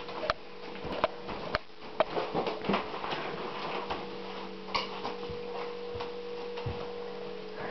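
Footsteps on a hard floor, sharp clicks about once a second, over a steady hum.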